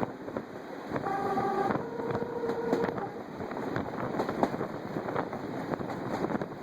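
A locomotive sounds a two-note signal: a short lower note, then a longer, slightly higher one. Under it is a steady rushing background broken by many sharp irregular clicks and crackles.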